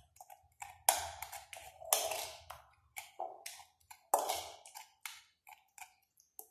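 Spoon tapping and scraping against a bowl while stirring grated turnip with sugar: an irregular string of short, sharp taps and clicks.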